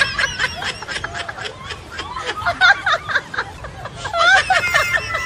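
Laughter: a quick run of short laughs, getting louder again about four seconds in.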